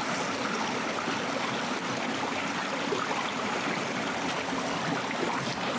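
Shallow rocky mountain stream running over stones and small cascades, a steady sound of flowing water.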